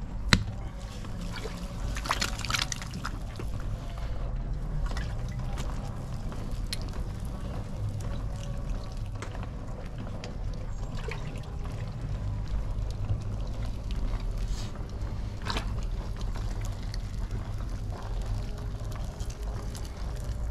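Wet clay squelching and slapping under a potter's hands as a tall vessel is thrown on a turning wheel, over a steady low rumble. A single sharp knock comes just after the start.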